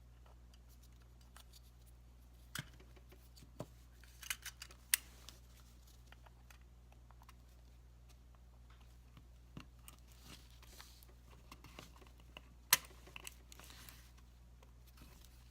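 Scattered sharp clicks and short scrapes of a Glock 43 pistol magazine and its plastic extended base plate being handled and fitted together, the loudest click a little before the end.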